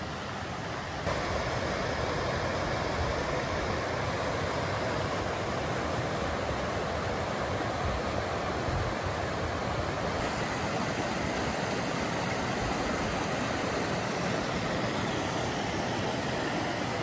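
Steady rush of a mountain river's flowing water, stepping up in loudness about a second in.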